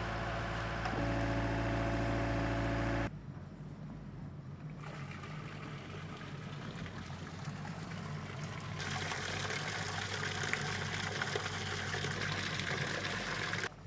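An engine running steadily, its pitch stepping up about a second in, cut off suddenly about three seconds in; then water pouring and splashing, louder from about nine seconds on.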